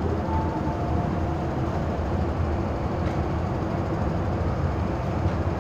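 MTR M-Train electric multiple unit pulling out of an underground station, a steady rumble of wheels and traction motors with a faint whine that fades about a second in.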